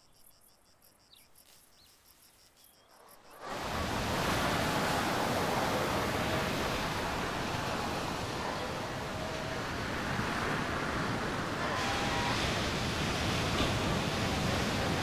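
Faint insect chirping in an even rhythm, then from about three and a half seconds in, ocean surf breaking over rocks: a loud, continuous rush of water.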